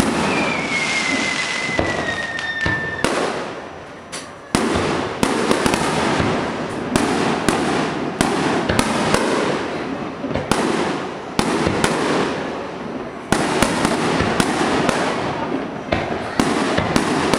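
Aerial fireworks display: a fast string of sharp shell bursts, several a second at times, with crackling and rumbling echo between them. Near the start a thin whistle slowly falls in pitch over about three seconds.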